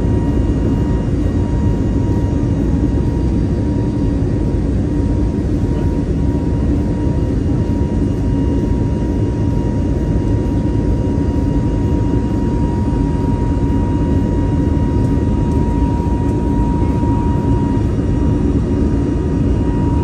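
Jet airliner cabin noise during the climb after takeoff: a steady, deep engine rush with a thin steady whine above it, heard from inside the cabin.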